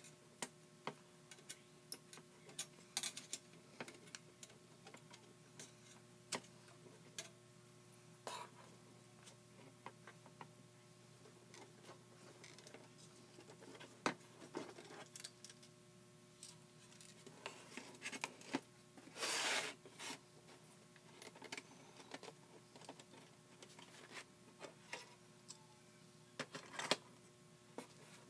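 Scattered clicks and light metallic taps as a tin toy dial typewriter and its small parts are handled and worked on, with a brief scraping rub about two-thirds of the way through.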